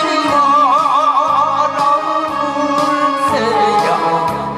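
Man singing into a handheld microphone, his held notes wavering with vibrato, over an accompaniment track with a steady low beat.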